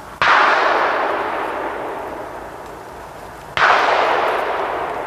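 Two distant gunshots about three and a half seconds apart, from boar hunters further along the valley. Each cracks suddenly and is followed by a long, fading echo rolling across the valley.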